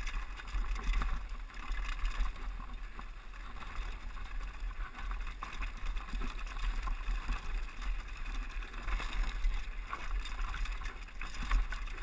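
Mountain bike rattling and its tyres crunching over loose rocks and gravel on a fast downhill descent, over a steady low rumble of wind buffeting the helmet-mounted GoPro.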